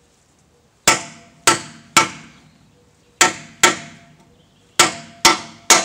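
Hammer striking a seal driver to drive a new rear axle seal into the axle housing: eight sharp hits in groups of three, two and three, each ringing briefly.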